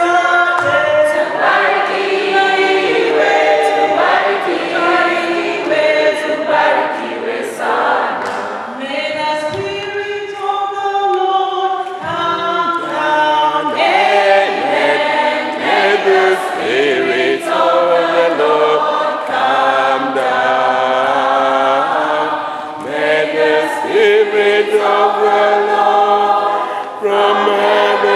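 A group of men and women singing together as a choir.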